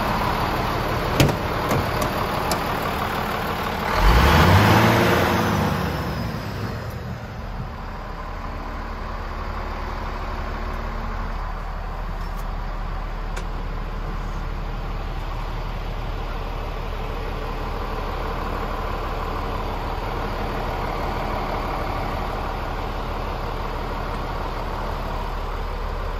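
Scania R440's turbocharged 13-litre straight-six diesel idling steadily. About a second in there is a sharp click, and about four seconds in a loud surge of noise lasting two to three seconds, with an engine pitch that rises and falls, before the steady idle carries on.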